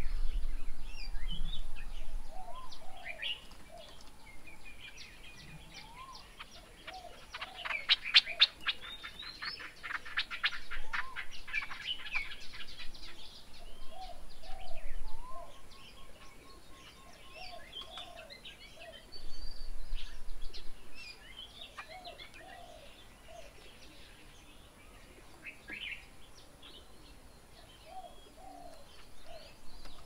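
Several birds calling and chirping around a garden bird table, including a fast, dense chattering run from about 8 to 13 seconds in and repeated short low notes. Brief bursts of low rumble come near the start and about two-thirds of the way through.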